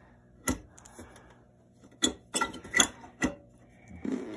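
About five sharp clicks and knocks, scattered and irregular, from a fluorescent tube and its fixture being handled, over a faint steady hum.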